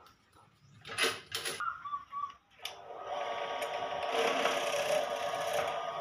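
A couple of short knocks, then from about three seconds in a bench drill press motor starts running and its bit bores into a wooden slat, a steady mechanical whirr that grows a little louder as the bit cuts.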